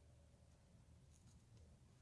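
Near silence: faint room hum, with a few soft clicks about a second in from hands handling the yarn tie.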